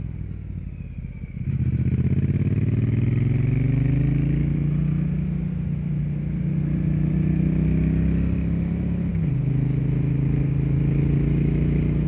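Triumph Bonneville T100's 900 cc liquid-cooled parallel twin, breathing through its stock silencers with a Zard X-pipe decat, pulling under load. About a second and a half in the throttle opens and the engine note rises as the bike accelerates, then holds steady. A little after nine seconds the note drops with an upshift and runs on steady.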